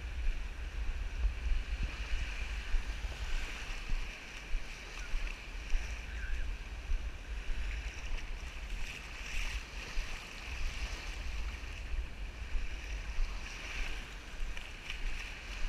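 Wind rumbling and buffeting on the microphone over a steady wash of small waves lapping at the shore.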